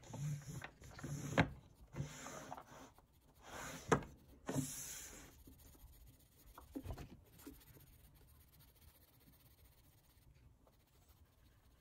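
Oil pastel sticks being handled in a wooden tray: rustling with a couple of sharp clicks in the first few seconds, then quieter handling until a pastel is picked up.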